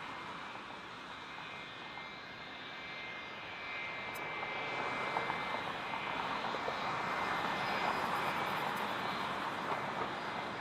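Airliner jet engines: a steady rush with a thin high whine, growing louder from about halfway through as the plane draws near.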